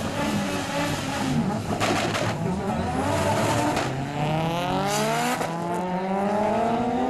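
Two drag-racing cars at the start line: engines revving hard, then launching, with their engine notes climbing steadily in pitch as they accelerate away down the strip.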